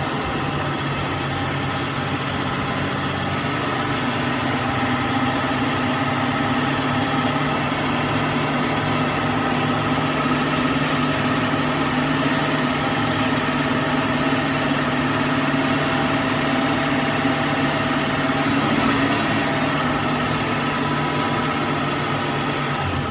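2000 Jeep Cherokee XJ's engine idling steadily while warming up as air is bled out of its coolant system. It gets a little louder about four seconds in.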